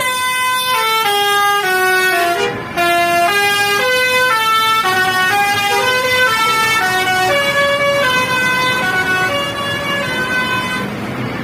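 Bus 'telolet' musical horn playing a tune of short held notes that step up and down, with a brief break nearly three seconds in.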